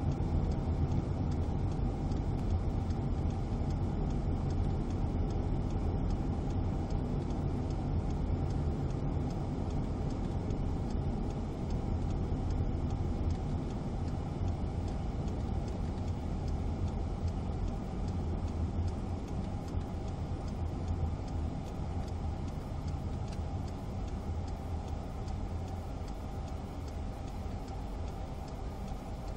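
Car interior noise while driving: a steady low engine and road drone, easing off slightly toward the end.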